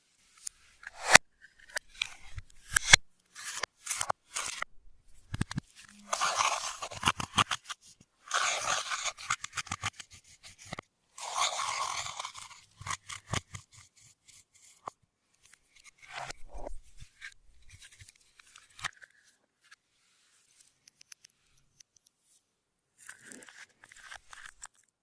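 Clear slime being squeezed and stretched by hand, making sticky clicks and crackling pops, with three longer crackling stretches in the first half and sparser clicks after.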